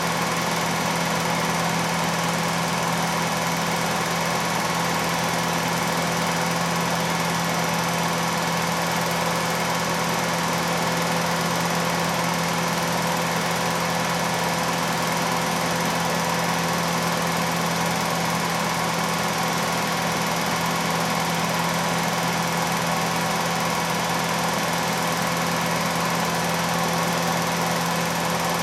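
Film projector running: a steady mechanical whir with a constant hum that does not change.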